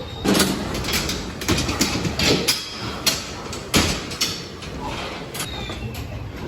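Irregular series of sharp knocks and clatters over a low background rumble, the loudest about half a second in, just after two seconds and near four seconds in.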